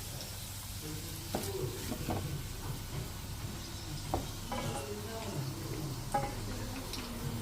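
Keropok lekor (fish sausage crackers) frying in hot oil with a soft, steady sizzle, and several sharp knocks of a utensil stirring them in the pan.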